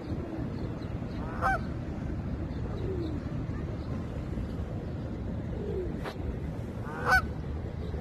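Canada geese honking: two loud, short honks, one about a second and a half in and another near the end, over a steady low rumble.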